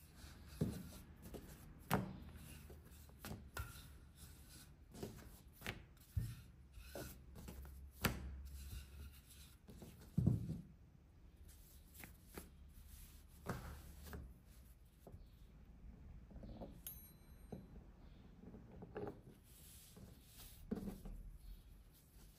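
Dough being rolled out and worked by hand: a wooden rolling pin knocking and rolling on a wooden board, giving irregular soft knocks and thuds, with a pizza-cutter wheel running through the dough near the end. A low steady hum sits under it.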